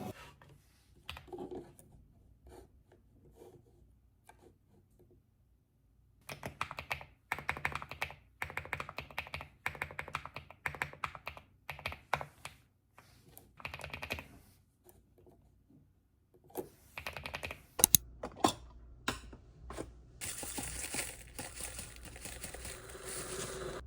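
Typing on a computer keyboard: quick runs of keystroke clicks with short pauses, and a few louder clacks. A steady hiss fills the last few seconds.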